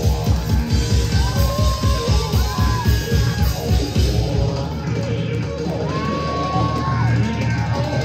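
Rock band playing live and loud: a fast, driving drum beat for about the first four seconds, then a held low chord with high sustained notes sliding up and down over it.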